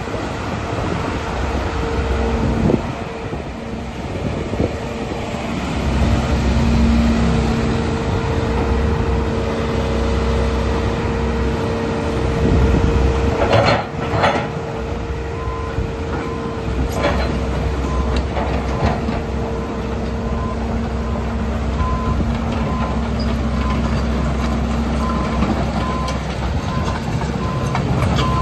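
Sany SY215C tracked excavator's Isuzu diesel engine running steadily, with a steady hydraulic-type whine over it. There are a few sharp metallic clanks near the middle, and a regular beep about once a second begins around halfway through.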